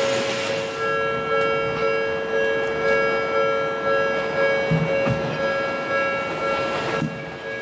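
Japanese railway level-crossing warning bell ringing on and on, a steady two-tone electronic alarm. A passing train's noise fades out in the first second.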